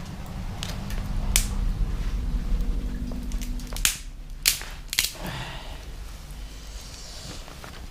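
Wooden disposable chopsticks burning in a small fire grill, crackling with about four sharp pops, the loudest around four and a half and five seconds in, over a low rumble that fades about halfway through.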